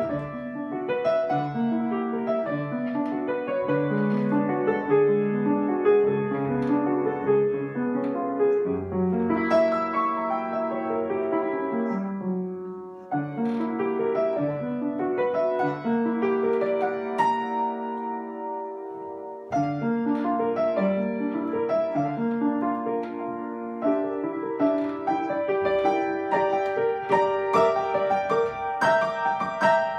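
Upright piano played solo: a classical-style piece with a low chordal accompaniment under a melody. The playing eases off briefly between phrases about 13 seconds in and again around 19 seconds.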